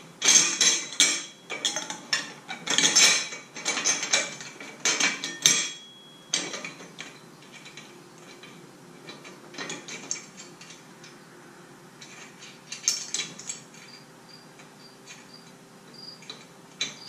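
Pieces of square aluminum tubing clinking and clanking as they are handled and fitted together, with a busy run of knocks for the first few seconds, then scattered clicks and a short cluster of knocks later.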